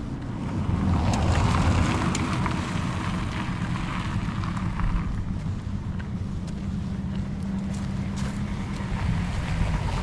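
Wind buffeting the microphone in a low rumble, swelling about a second in, with faint footsteps of someone walking on a paved road.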